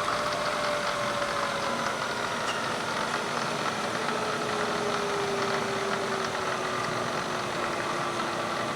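Rebuilt head of a Bridgeport EZ Trak DX vertical mill running its spindle in low range, a steady mechanical hum with a whine that falls slowly in pitch as the spindle speed is turned down.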